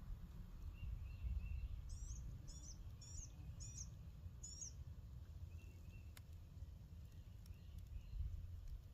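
Songbird calls outdoors: a bird gives five high, quick notes about half a second apart, with fainter chirps from other birds scattered around it. A low steady rumble runs underneath.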